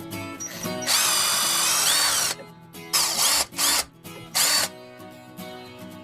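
Power drill running in four bursts, one long run of about a second and a half followed by three short ones, its motor whine shifting slightly in pitch as it works.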